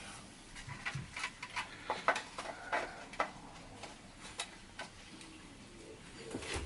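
Irregular clicks and taps of hard 3D-printed plastic parts being handled and fitted together, most of them in the first half, then only a few.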